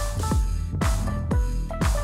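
Electronic dance music from a live DJ set: a steady kick drum about twice a second, with hi-hats and short pitched notes over it.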